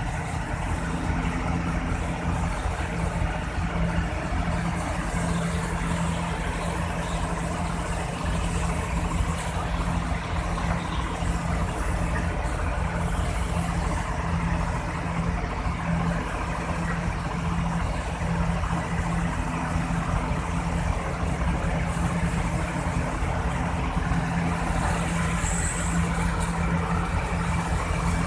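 Hydraulic excavator's diesel engine running with a steady drone as the machine digs in a narrow trench.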